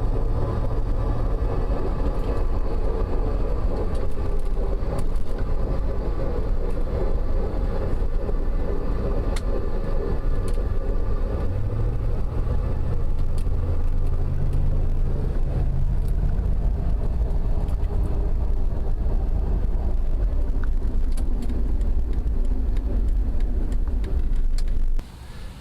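A 1998 Jeep Grand Cherokee ZJ being driven: a steady drone of road and drivetrain noise, with a whine from the rear differential that eases about halfway through. The noise comes from worn rear differential carrier bearings. The sound cuts off suddenly near the end.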